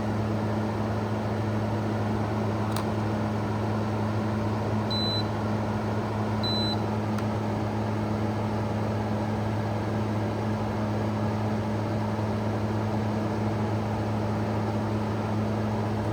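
Arctic King 5000 BTU window air conditioner running steadily on its fan with a low hum, the compressor not yet started. A click about three seconds in, then two short high beeps about five seconds in and a second and a half apart.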